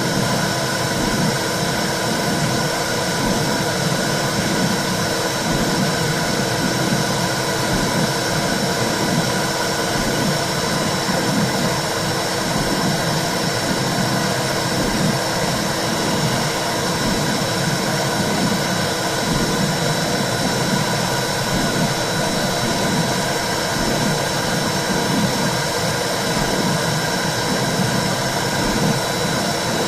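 Womb sound for soothing a baby: a steady whooshing noise with a low, rhythmic pulsing underneath.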